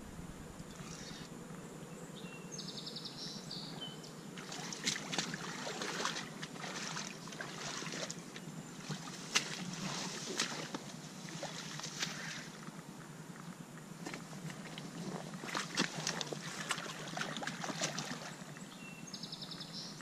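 Irregular splashing and rustling at the water's edge while a hooked channel catfish is fought on rod and line close to the bank, over a steady outdoor hiss. A few short patches of fine regular ticking come near the start and again near the end.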